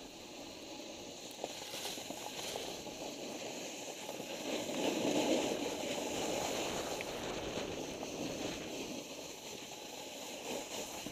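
Snowboard sliding and carving over snow: a steady hiss and scrape with wind on the microphone, swelling louder for a couple of seconds around the middle.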